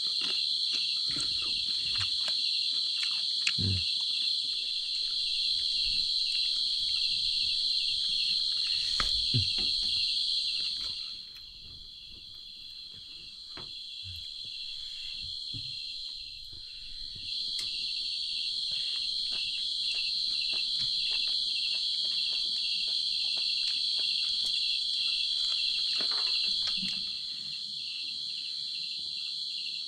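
A dense, steady chorus of night insects trilling high. It falls away for several seconds in the middle, then comes back. Faint clicks and taps are scattered throughout.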